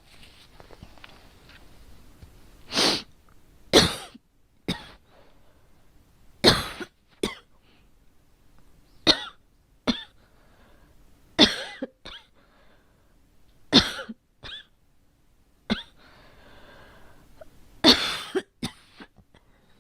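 A girl coughing repeatedly: single coughs and short double coughs, one every two to three seconds.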